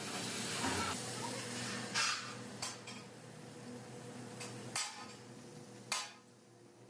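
Oxy-fuel cutting torch hissing steadily as it cuts through steel plate, over a low steady hum, with four sharp metallic clinks at irregular spacing. The hiss fades near the end.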